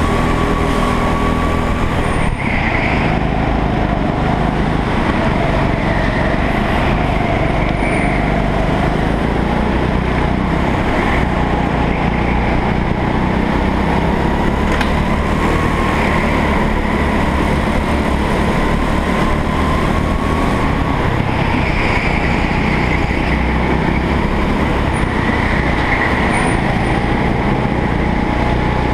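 Go-kart engine running under throttle, heard onboard the kart. Its pitch rises and falls slowly as it speeds up and slows through the corners.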